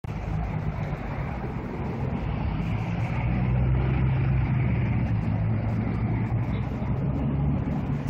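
Steady low rumble of road traffic, swelling slightly a few seconds in.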